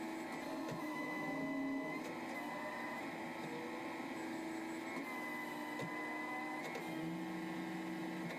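Steady mechanical whine and hum of the Sumitomo SC1000-2 crawler crane's machinery heard inside the operator's cab, its tones shifting in pitch every second or two.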